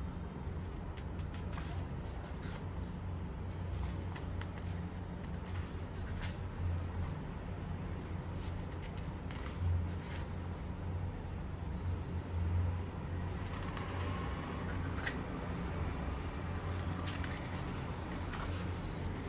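Hands handling Blu-ray packaging: scattered light rustles and clicks of paper and plastic over a steady low hum.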